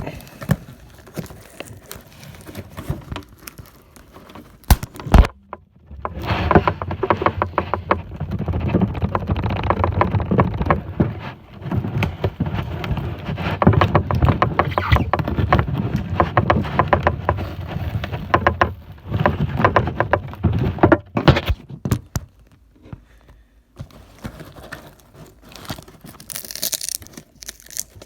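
A shipping package being handled and torn open by hand: a long stretch of dense rustling, scratching and crinkling, with a few sharp knocks before and after.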